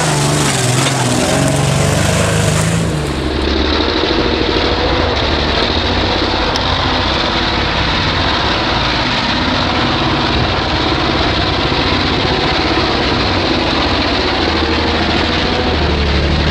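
Land Rover engine running as the four-wheel drive works through deep sawdust, steady and loud. The sound changes abruptly about three seconds in, then runs on evenly.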